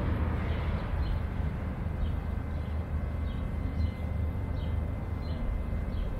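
City street ambience heard while walking: a steady low rumble, with faint short high chirps scattered through it.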